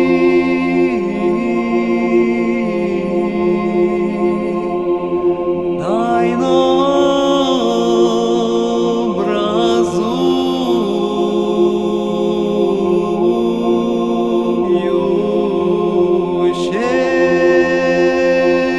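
Unaccompanied choir singing an Orthodox chant: a steady held note sounds under a slow melody that rises and falls.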